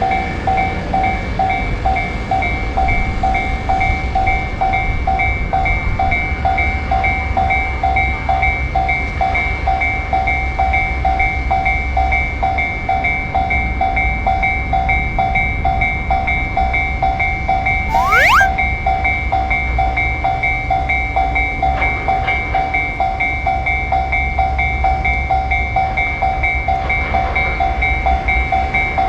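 Japanese railroad crossing warning bell ringing in rapid, evenly repeated dings while an electric train rumbles through the crossing. A short rising whistle sounds about 18 seconds in.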